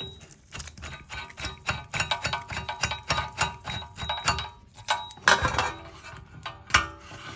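Metal tools and press parts clinking and knocking together in quick, uneven clicks with a faint ring, louder around five seconds in.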